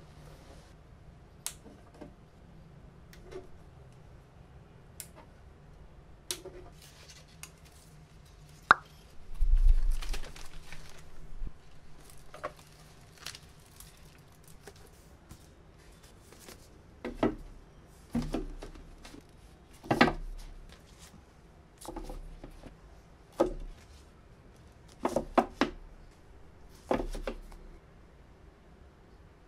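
Paperback books being handled, stacked and set onto a white bookshelf: a string of irregular soft knocks, taps and thuds. A longer, louder thump with a rustle comes about ten seconds in.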